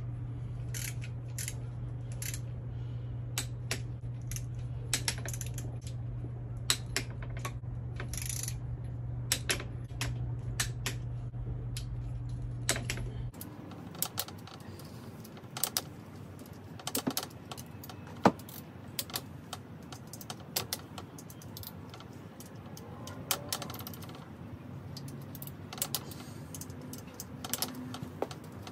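Irregular metallic clicks and clinks of hand tools and bolts as the timing chain cover is bolted onto an LS engine. A steady low hum runs underneath and stops abruptly about thirteen seconds in.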